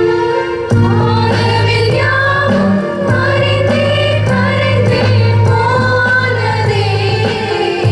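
A group of voices singing a song together over instrumental accompaniment with sustained low notes; the singing comes in about a second in.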